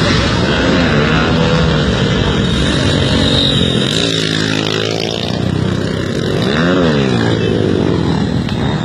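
Motorcycle engine revving, its pitch rising and falling several times, with one sharp rise and fall of revs near the end.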